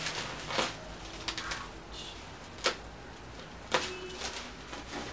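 Plastic bubble wrap around a package rustling and crinkling as it is handled and cut with a box cutter, with a few sharp clicks and snaps.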